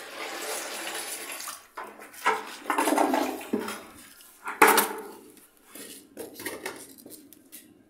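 Water poured from a bucket into a newly installed ceramic toilet bowl to test its drain: a steady rush at first, then irregular loud splashing and gurgling as it swirls down, with a few sharp knocks, fading out near the end.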